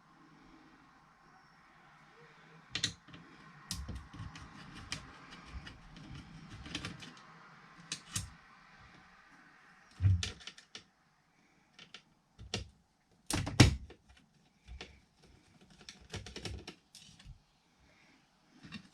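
Irregular clicks and knocks of hands and tools handling a car radio unit and its casing, with two louder knocks about ten and thirteen seconds in.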